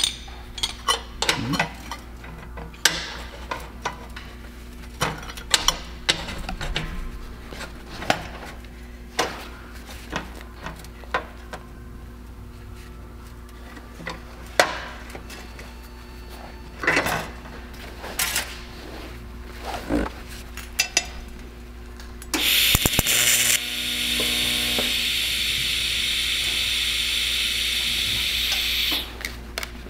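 Stainless steel pipe and O2 sensor bung clinking and knocking against the steel welding table and fixture as they are set in place. About 22 seconds in, a TIG welding arc strikes with a louder crackle, then runs as a steady buzzing hiss for about six seconds while the bung is tack-welded to the pipe, and cuts off suddenly near the end.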